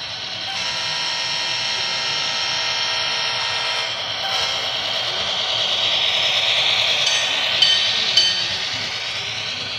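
HO scale model freight train passing close by. The GP38-2 model locomotive's electric motor gives a steady whine, and then the wheels of the hopper cars roll over the track. Two sharp metallic clicks come near the end.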